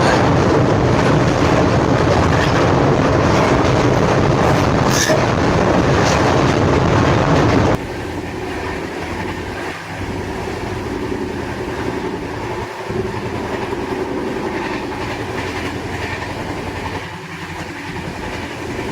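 Passenger express train running on the rails: a steady rumble and wheel-on-rail noise that drops abruptly to a quieter rumble about eight seconds in.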